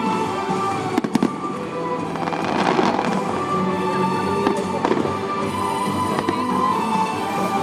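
Aerial fireworks bursting, with several sharp bangs about a second in, a crackling stretch near the middle and another bang around five seconds, over steady background music.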